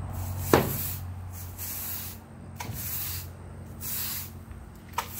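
Push broom sweeping a concrete floor, its bristles swishing in repeated strokes about once a second, with a sharp knock about half a second in.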